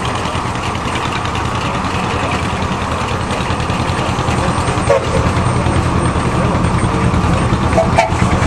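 Steam traction engine driving a sawmill, running steadily with a fast low rhythmic beat that grows slightly louder through the second half.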